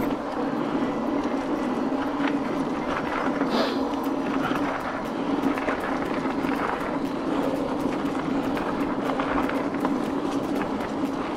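Mountain bike tyres rolling on a gravel trail: a steady hum from the tyres on the crushed stone, with scattered small crunches and ticks from gravel and bike rattle.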